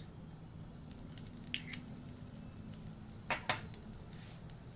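A pat of butter being put into olive oil in a cast-iron skillet: faint soft squishing with a few light taps against the pan, about a second and a half in and again near three and a half seconds, over a low steady hum.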